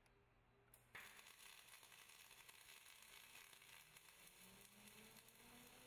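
Faint crackling hiss of a welding arc on a Bug-O MDS pendulum weave welder, striking suddenly about a second in and then running steadily.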